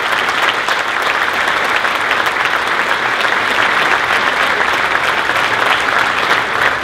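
Audience applauding: many people clapping at an even level.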